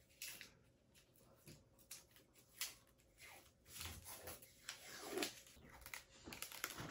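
Faint crinkling and crackling of protective paper backing being peeled off small plastic parts by hand, in scattered small rustles and ticks.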